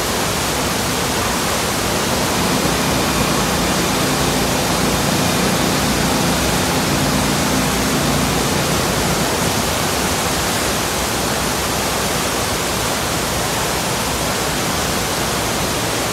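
Loud, steady rush of churning water pouring out of a water slide's tunnel into its runout pool.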